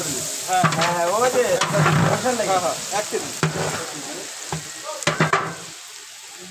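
Sliced onions frying in hot oil in a large metal pot, sizzling while a long metal spatula stirs them and scrapes the pot, with a few sharp scrapes about five seconds in. The sizzle fades toward the end.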